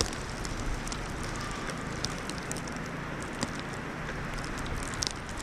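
Steady wind hiss with scattered faint crackling ticks.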